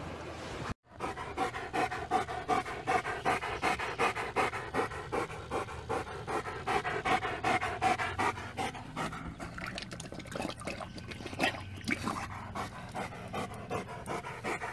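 German Shepherd panting fast and evenly with its open mouth right at the microphone.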